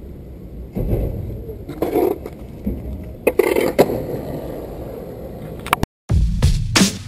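Skateboard wheels rolling on concrete with a steady low rumble, broken by sharp knocks of the board about one, two and three and a half seconds in. Near the end the sound cuts out briefly and electronic music with a beat starts.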